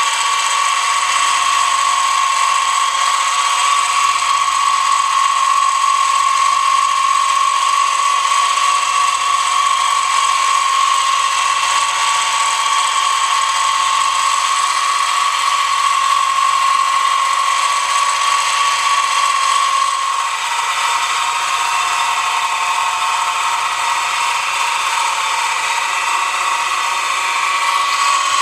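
Milling machine running, its shop-made drill-rod steel cutter cutting cog-belt teeth into a wheel blank: a loud, steady high whine.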